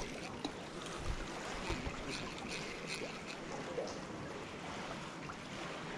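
Black Sea surf washing onto a beach, a steady hiss of small waves with faint splashes.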